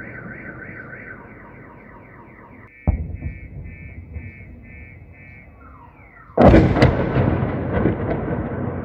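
A car alarm sounding its repeating siren pattern, switching to a pulsing tone, while artillery shells explode: a sharp blast about three seconds in, then a much louder blast a little after six seconds whose rumble rolls on.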